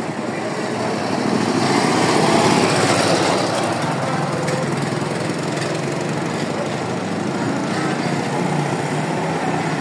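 Small motorcycle engine running in the street, growing louder as it passes close about two seconds in, then running on more steadily.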